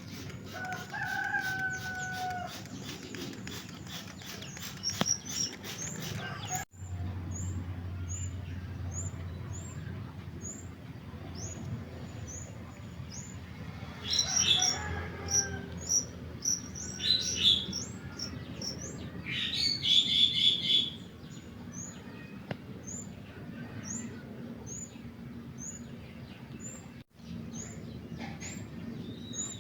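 Male yellow-vented bulbul (trucukan) chirping in several loud bursts, over a faint high chirp repeated about once a second. A drawn-out call sounds about a second in.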